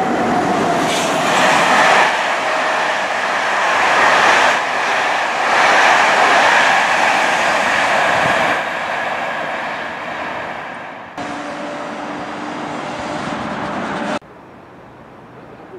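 Electric passenger train of Corail reversible coaches with a BB 7200R locomotive passing close by at speed, with a loud steady rolling rumble of wheels on rail. It fades as the train draws away, and the sound drops abruptly twice near the end.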